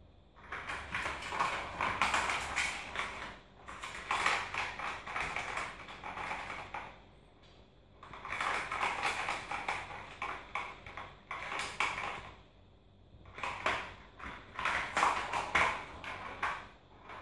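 Plastic ball rolling and rattling along a curved plastic cat track toy as a kitten bats it, in four spells of a few seconds each with short pauses between.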